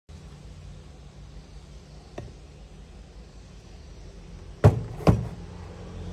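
A heavy sealed lead-acid battery set down on a cutting mat: two sharp knocks close together a little before five seconds in, after a small click, over a steady low hum.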